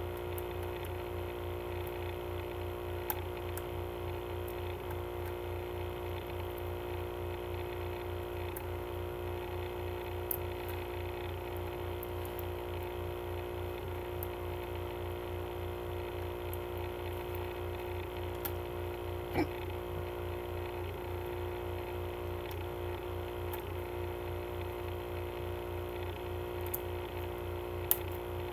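A steady hum with a fast low flutter fills the background. Over it come a few faint, scattered clicks and taps from fingers picking at the plastic wrap of a CD case to get it open.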